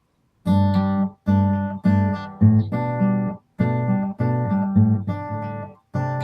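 Acoustic guitar strummed in chords, starting about half a second in, with a few brief silent breaks between the strummed phrases.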